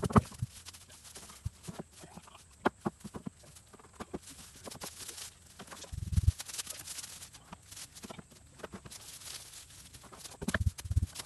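A long steel digging bar jabbed into dry forest ground, making irregular knocks and scrapes. There are a couple of dull, heavier thumps, about six seconds in and again near the end.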